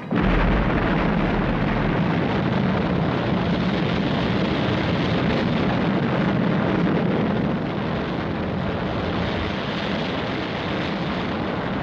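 Thunderbird 1's rocket engines, a steady roaring rush as the craft climbs in vertical flight. The sound cuts in suddenly and eases off a little about two-thirds of the way through.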